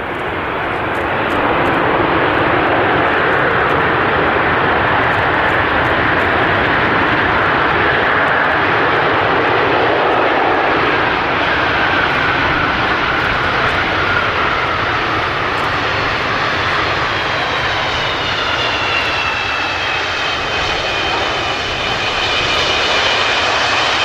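The six D-18T turbofan engines of the Antonov An-225 Mriya running loudly on the runway as a steady rushing jet noise. In the second half a high whine of several tones comes in and slides slowly down in pitch.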